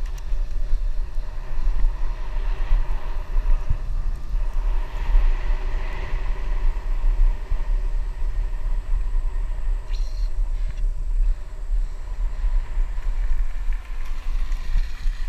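Steady low rumble of wind buffeting an action camera's microphone on a moving bicycle, mixed with tyre noise rolling over a paved road.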